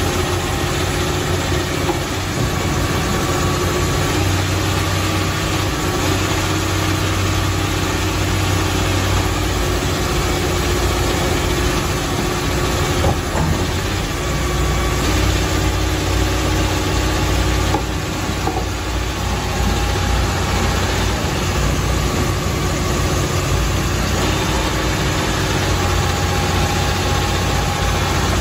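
Komatsu PC350 crawler excavator's diesel engine running steadily with a low hum while the machine creeps up onto a lowboy trailer, with a few faint knocks.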